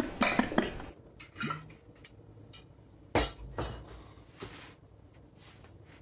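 A few sharp clinks and knocks of hard objects being handled, a quick cluster at the start and then single strokes spread out, the loudest about three seconds in, with quiet between.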